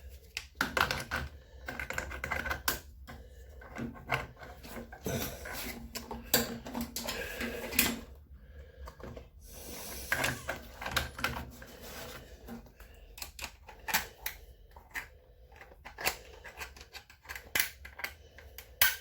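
Irregular clicks, knocks and rattles of metal tools and washing-machine parts being handled by hand, many sharp clicks in quick succession.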